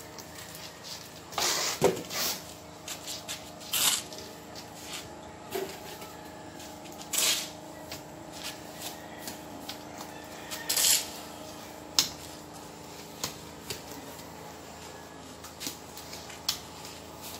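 Hand tool scraping and tapping hardened plaster off a window grill: irregular short taps with a few longer scraping strokes, over a faint steady hum.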